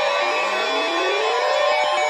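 Background music of held synthesizer tones, with several slow rising pitch glides sweeping through it.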